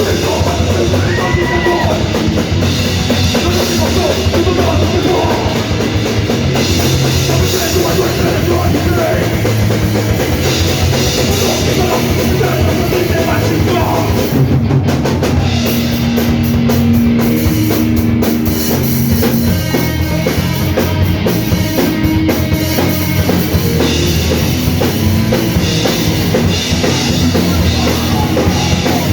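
Crust punk band playing live and loud: heavy drum kit, distorted guitars and bass in one dense wall of sound.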